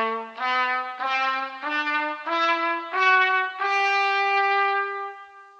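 Solo trumpet playing an ascending musical scale, one note at a time, and holding the top note long before it fades.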